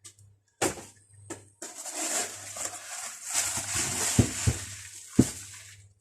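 Packaging rustling as a parcel is unwrapped, with a click about half a second in and several sharp knocks about four to five seconds in.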